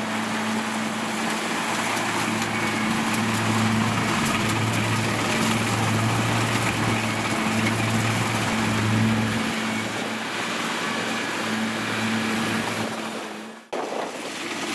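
Kubota rice combine harvester running under load as it cuts rice: a steady engine hum with the clatter and rush of the cutting and threshing gear. The sound cuts off abruptly about a second before the end and gives way to a thinner, more distant machine sound.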